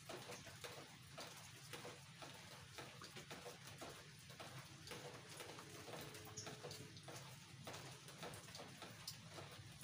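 Near silence: quiet room tone with a steady low hum and faint scattered ticks.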